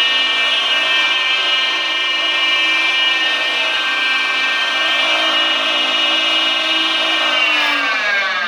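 Hayward SP3400VSP variable-speed pool pump running with a loud, steady whine. About seven seconds in the whine starts to drop in pitch as the motor begins to wind down.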